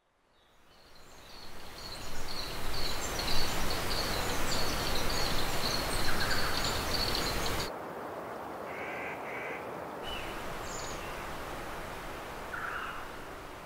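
Outdoor nature ambience. A steady rushing noise carries rapid, high chirping for the first seven and a half seconds or so, then cuts suddenly to a quieter background with a few separate bird calls.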